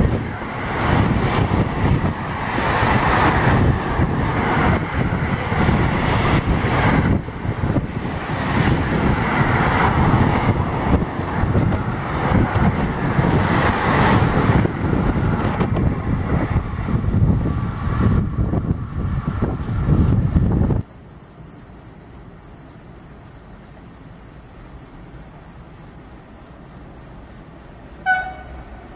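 A train running past, a loud rumble with repeated clicks, which cuts off suddenly about twenty seconds in. Then crickets chirping in a steady, high, pulsing trill, with one short tone near the end.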